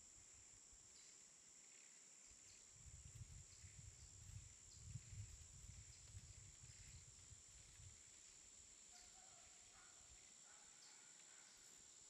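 Near silence: faint outdoor ambience with a steady high-pitched whine, faint short chirps about once a second, and a soft low rumble for a few seconds in the middle.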